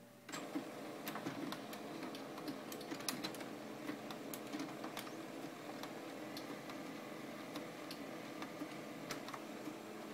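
Samsung CLP-315 colour laser printer's mechanism starting up suddenly about a third of a second in and running steadily, a motor hum with many sharp clicks and ticks scattered through it.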